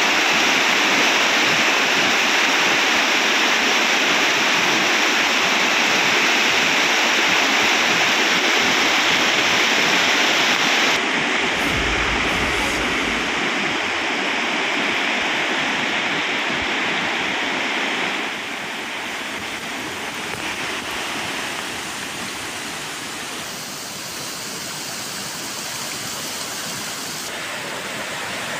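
Swollen stream in flood rushing over a submerged footbridge: a steady rush of fast-moving water. It changes abruptly about eleven seconds in and is quieter from about eighteen seconds in.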